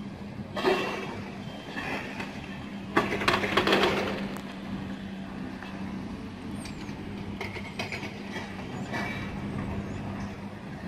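Diesel engine of a long-reach demolition excavator running steadily, with loud crunching and clattering of brickwork and debris being torn down about a second in and again around three to four seconds in, and a few lighter knocks later.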